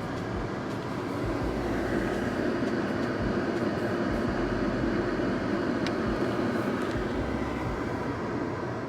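Steady, even mechanical rumble with a low hum and a faint tick or two about six seconds in.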